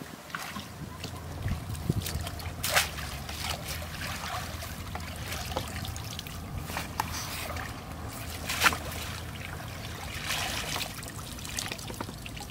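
Shallow stream water splashing and dripping as a woven bamboo fish basket is dipped and scooped through it by someone wading, with several sharper splashes, the loudest about two-thirds of the way through, over a steady low background rumble.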